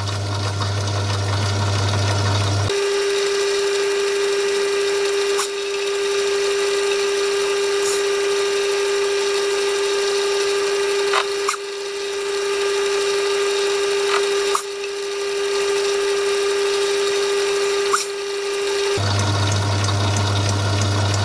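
Myford lathe running while light cuts are taken on a tiny brass screw, first with a low steady motor hum. About three seconds in, the sound switches to four-times playback: a steady high whine with a few faint ticks. The low hum comes back about two seconds before the end.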